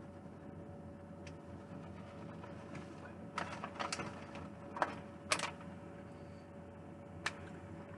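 Plastic bag of shredded cheese crinkling in the hands as it is opened and shaken over the dish: a few short crinkles and clicks around the middle and once more near the end, over a faint steady hum.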